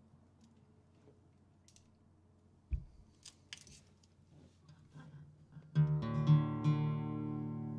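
Low room noise with a few small clicks and a soft knock, then about six seconds in an acoustic guitar is strummed and a full chord rings out, strummed again a few times.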